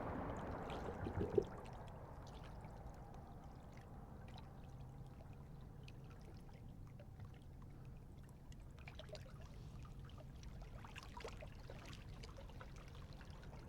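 Faint lakeshore ambience: water lapping gently at the bank, with a few scattered faint clicks and a small knock about a second in.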